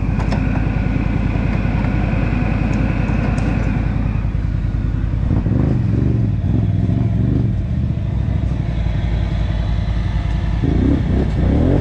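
ATV engine running steadily, then revving up and down in uneven surges from about halfway, and revving again near the end.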